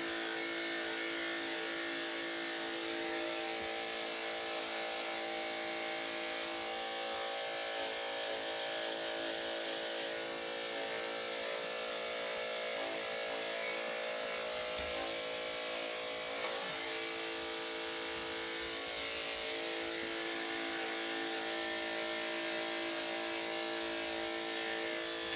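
Electric dog grooming clippers running with a steady hum, held on without stopping.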